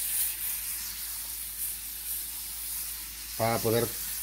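A pat of butter melting in hot olive oil in a frying pan, sizzling with a steady hiss.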